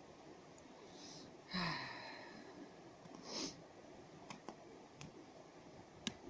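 Faint knife whittling on a small block of wood, a few soft clicks and scrapes as the blade takes off cuts. The carver sighs once about a second and a half in and breathes out sharply through the nose around three seconds in.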